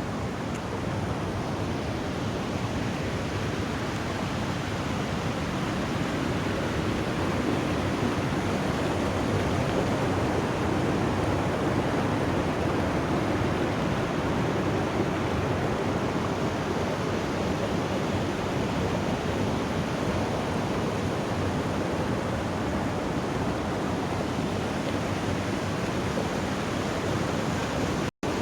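Putna waterfall: water falling and rushing in a steady, even roar. The sound cuts out for an instant near the end.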